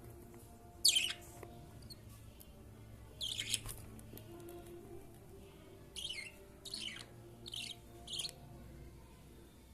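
Budgerigar chirping: one loud chirp about a second in, a longer run of chirps around three and a half seconds, then four short, evenly spaced chirps falling in pitch in the second half.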